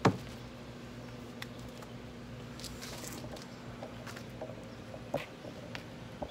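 Handling noise: one sharp knock right at the start, then a few faint rustles and light taps over a low steady hum, as the camera and the cardboard box are handled.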